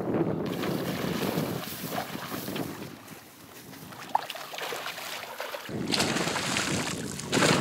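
Wind buffeting the microphone over splashing water as a hooked pike fights at the surface, the splashing louder near the end.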